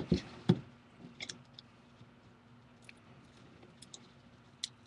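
A nylon probe tool and fingertips clicking and scraping against the glued-in battery of an opened Amazon Kindle Fire as the adhesive is worked loose. There are a few sharp clicks in the first half-second, then scattered faint ticks.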